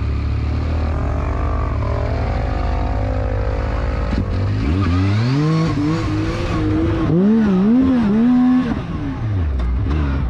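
Yamaha YXZ1000 buggy's three-cylinder engine running low, then revving up about four seconds in, its pitch rising and falling with the throttle for several seconds before dropping back down near the end.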